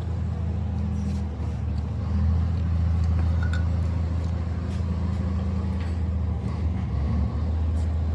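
A machine running with a steady, low, even hum, like an engine or motor held at one speed, with faint clicks and knocks over it.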